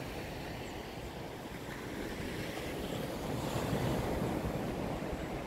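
Surf washing onto a sandy beach mixed with wind blowing across the microphone: a steady rushing that swells a little about three and a half seconds in.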